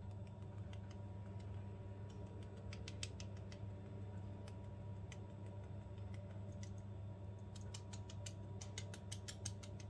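Light, quick metallic ticking of a mesh tea-ball infuser being shaken and tapped to sift flour over bread dough. The ticks come in a short flurry about three seconds in and a faster run near the end, over a steady low hum.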